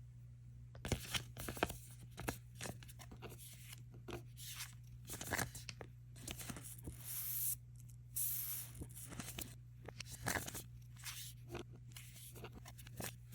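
Pokémon trading cards and a foil booster-pack wrapper being handled close to the microphone: many short sliding and rustling clicks, with a few longer tearing, crinkling rustles in the middle, over a faint steady hum.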